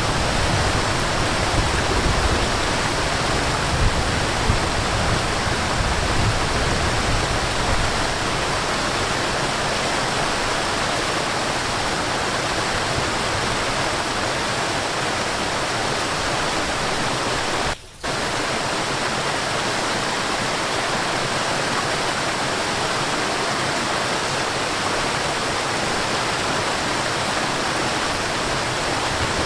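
Waterfall rushing steadily, an even full-range roar of falling water with a deeper rumble in the first several seconds. The sound cuts out for a split second about two-thirds of the way through, then carries on as before.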